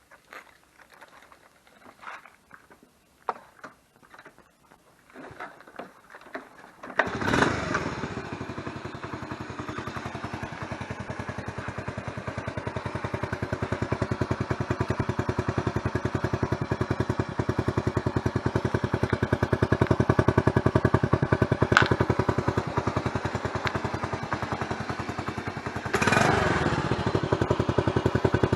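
Honda Super Cub 90's small air-cooled single-cylinder four-stroke engine, exhausting through an aftermarket Outstanding monaka muffler with its silencer insert fitted. After a few scattered clicks and knocks, the engine starts about seven seconds in. It then runs at a steady, rapid idle and picks up briefly near the end.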